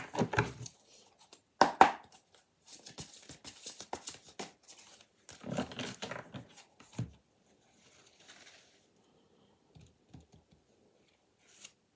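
A deck of oracle cards being shuffled by hand: bursts of rustling and flicking card edges through the first seven seconds, then only a few light taps near the end.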